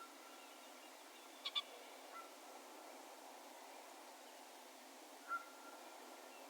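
Faint distant bird calls: short single notes that each ring on in a long echo, three times, and a sharp double chirp about a second and a half in, over a steady faint background hiss.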